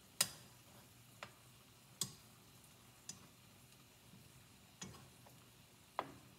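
Metal kitchen tongs clicking together and tapping the nonstick skillet as shrimp are turned over, about six sharp clicks at irregular intervals.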